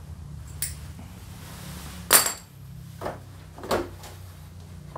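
Four metallic knocks and clinks of hand tools against motorcycle parts, the loudest about two seconds in, over a steady low hum.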